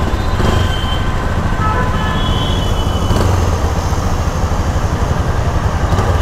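Motorcycle engine idling steadily, a continuous low pulsing rumble.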